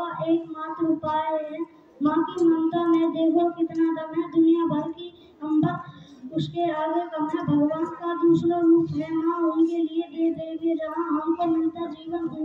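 A child singing a song solo, phrase after phrase with brief pauses between them.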